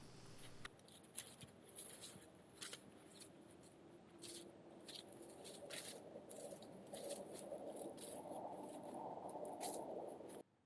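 Faint footsteps crunching in snow: irregular small crunches and clicks, cutting off suddenly near the end.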